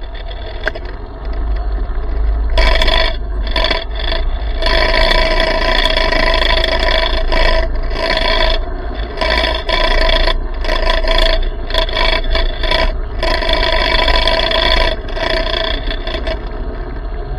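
Small electric minibike's motor whining at a fixed pitch, cutting in and out a dozen or so times as the throttle is applied and released, over a steady low rumble.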